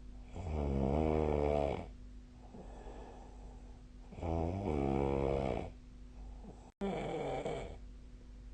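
A person snoring: three loud, rumbling snores a few seconds apart, with softer breaths between them. The audio cuts out for an instant just before the third snore.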